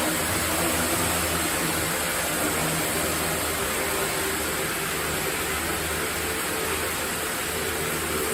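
Sawmill machinery running steadily: a constant low hum under a broad hiss, with no breaks or impacts.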